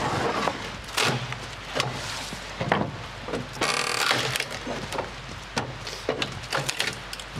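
Hand tools working a wooden beam: irregular sharp knocks and cracks of wood, with one longer rasping scrape about halfway through.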